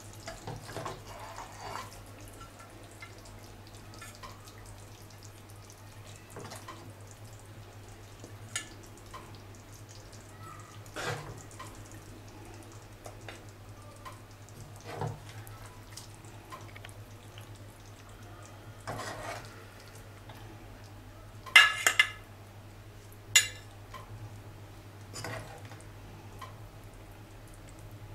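A steel ladle scooping chicken curry out of a pot and into a ceramic serving dish, with scattered scrapes and knocks. A few sharp metal-on-dish clinks come about two-thirds of the way through.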